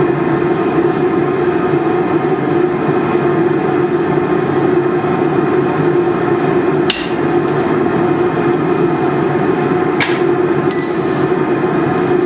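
Steady roar of a blacksmith's forge with a few sharp hammer strikes on steel: one about seven seconds in, another about ten seconds in, and a ringing metallic strike soon after.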